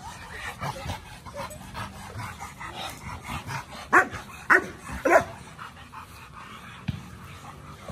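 A big dog barks three times in quick succession, about half a second apart, partway through, over quieter scattered dog sounds.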